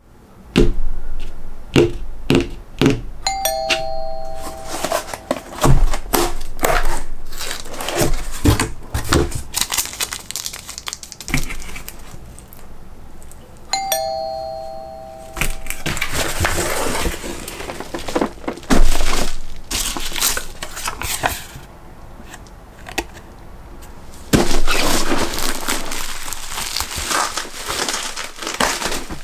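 A two-note ding-dong doorbell chime, a higher note falling to a lower one, rings twice about ten seconds apart. Between and after the chimes come knocks and clicks of handling, and a long stretch of plastic bubble wrap crinkling as it is pulled off a box near the end.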